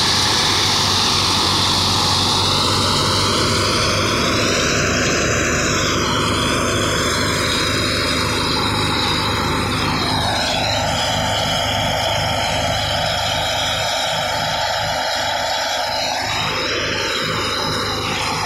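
Tractor-powered wheat thresher running steadily under load: a loud, unbroken mechanical drone of the drum and blower with a whoosh of chaff being blown out, the tractor engine humming underneath.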